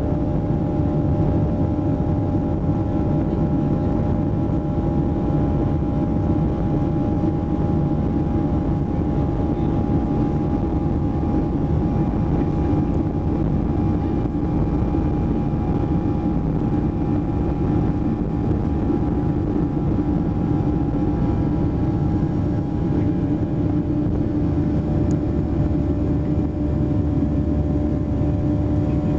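Boeing 737-800's CFM56-7B jet engines at takeoff thrust, heard from inside the cabin over the wing during the takeoff roll: a loud, steady rushing noise with a low hum of several steady tones.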